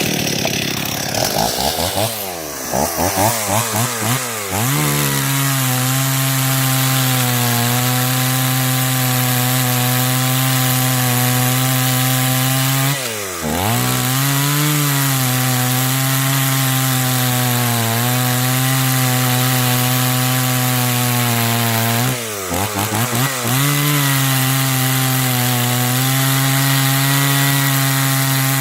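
Stihl 024 AV two-stroke chainsaw starting abruptly and being blipped up and down for a few seconds, then held at a steady high speed. Twice the revs drop briefly and climb back: once about halfway through, and a little later with several quick blips before it settles again.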